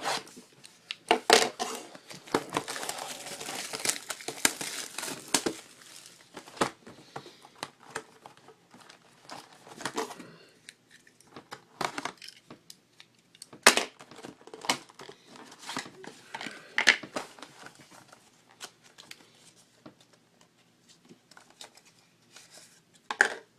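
Plastic wrapping on a trading-card box being torn and crinkled as the box is opened, with a long stretch of tearing and rustling in the first few seconds. After that come scattered sharp clicks and rustles of cardboard and wrappers being handled.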